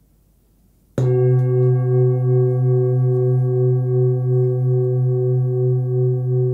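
Forged 26.5 cm Full Moon singing bowl struck once about a second in, then ringing on with a deep hum near 130 Hz (between B and C) and several higher overtones, the tone wavering in a slow pulse.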